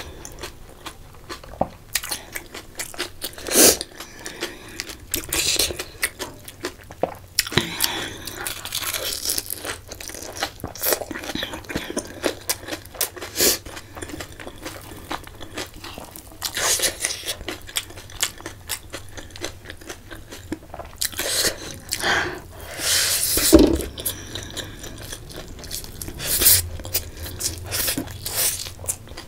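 Close-miked mukbang eating: a mouthful of food crunched and chewed, with irregular crisp clicks and mouth noises and a few louder noisy bursts. The food is a crisp panipuri shell and then a handful of spicy macaroni and instant noodles.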